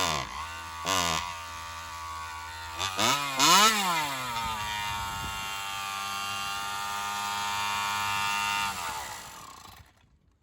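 Joncutter 5800 two-stroke chainsaw running on alcohol fuel: the throttle is blipped a couple of times and revved up and back down, then the saw idles steadily and stops near the end.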